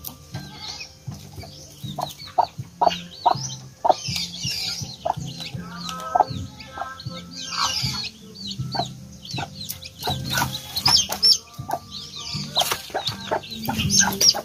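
Newly hatched Rhode Island Red chicks peeping in quick high chirps, with a mother hen clucking in short low notes.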